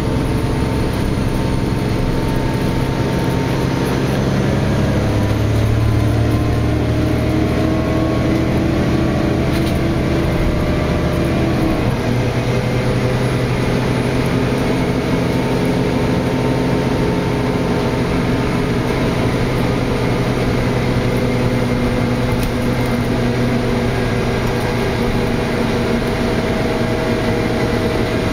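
A NovaBus LFX city bus with a Cummins ISL9 diesel, heard from inside the passenger cabin while the bus is under way: a steady engine hum over road and tyre noise. The engine note changes pitch a few times in the first several seconds. A higher tone fades out about twelve seconds in.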